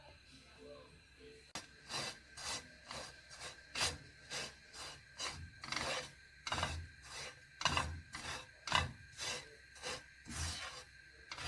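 A spatula scraping and stirring flour around a dry wok, in short rasping strokes about two to three a second starting about a second and a half in: rice and kurinja (gymnema) puttu flour being dry-roasted.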